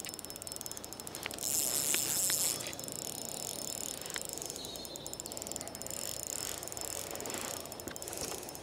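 Spinning reel's drag clicking rapidly as a hooked pike takes line against a light drag setting, loudest for about a second, starting about a second and a half in.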